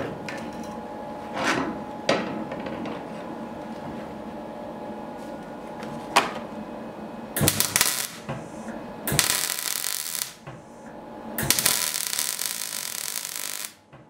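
MIG welder welding a steel block held in a bench vise: three runs of crackling arc noise in the second half, a short one and then two longer ones with brief pauses between. Before that there is a steady hum and a few knocks of metal on metal.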